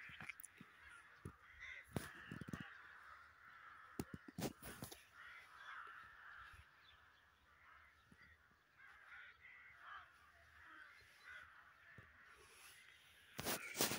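Crows cawing from a passing flock, faint and scattered, with a few sharp clicks, the loudest cluster near the end.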